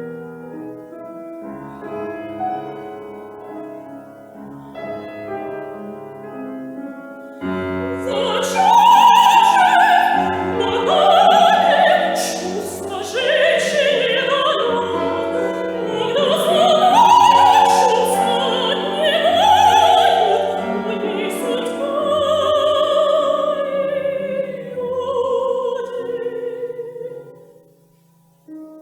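Piano accompaniment playing alone, then a classical soprano voice comes in about a quarter of the way through, singing sustained phrases with wide vibrato over the piano. The voice and piano die away shortly before the end.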